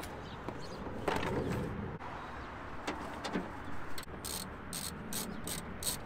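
Hand tools working inside a pickup truck's door to unbolt the exterior door handle. A few knocks come first, then from about four seconds in a run of quick, high clicks, about four a second.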